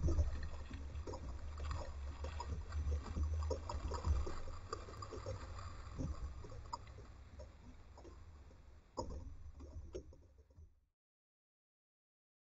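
Wind rumbling on the kayak-mounted camera's microphone, with small water lapping and knocking against the kayak hull, fading away near the end.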